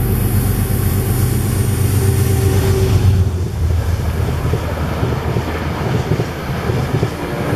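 Passenger train passing close by: a heavy low rumble for the first three seconds or so, then a lighter steady rolling noise as the silver coaches run past.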